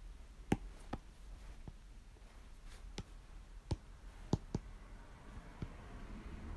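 A stylus tapping on an iPad's glass screen: about eight light, sharp clicks at irregular intervals.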